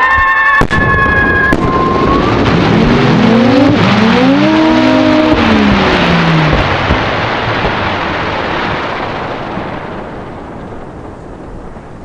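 Firework whistles from a 3-inch Italian cylinder shell: high falling whistles die out in the first two seconds, with a single sharp pop under a second in. Then low howling whistles rise and fall several times, the shell's 'lupi' (wolf-howl) effect, over a steady hiss of burning effects that fades away over the last few seconds.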